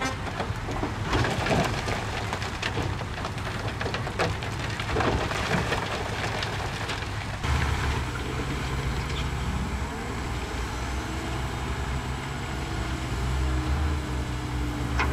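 Rocks clattering and sliding out of a tipping dump truck body. After an abrupt change about seven seconds in, a heavy 12-wheel dump truck's diesel engine is running steadily, with a faint whine joining in as the loaded tipper body begins to rise.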